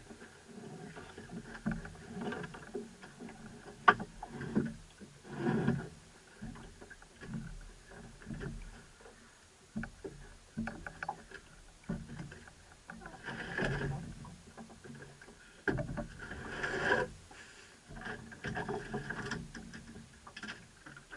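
Irregular knocks, rattles and splashy noise aboard a small drifting open boat, with no engine running. There is one sharp click about four seconds in, and louder swells of noise around five, thirteen and seventeen seconds in.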